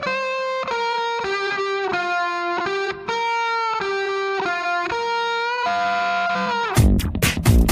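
Background music: a sustained lead melody of held, sliding notes over a quiet backing with no beat, until the drums come back in near the end.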